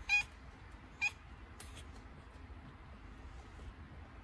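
A tabby cat in labor gives two short, high meows about a second apart, crying during contractions.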